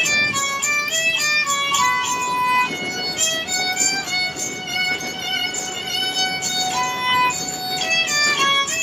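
Rajasthani folk sarangi being bowed in a melody of held notes, broken by quick running figures near the start and again near the end, over steady low noise from the train carriage.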